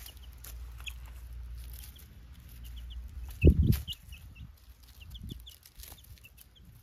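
Baby chicks peeping in short, high cheeps while pecking at dirt and dry leaves, with faint scratchy clicks. A low thump about halfway through is the loudest sound.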